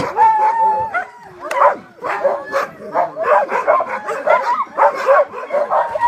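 A team of Siberian huskies in harness barking, yipping and howling all at once, with a long howl at the start. It is the excited clamour of sled dogs held back and eager to start pulling.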